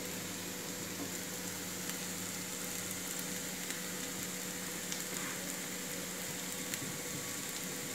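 Chopped onions frying in oil in a pan on a low flame: a steady, quiet sizzle with a few faint crackles.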